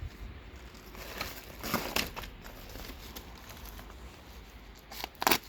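Rustling and crinkling of parts being handled, with louder rustles between one and two seconds in and a sharp knock near the end.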